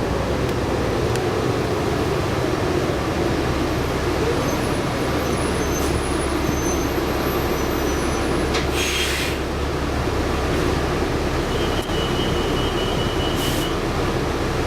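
Inside a New Flyer D60LFR articulated bus, its Cummins ISL9 diesel running with a steady low hum through the Allison B500R transmission. A short hiss comes about nine seconds in.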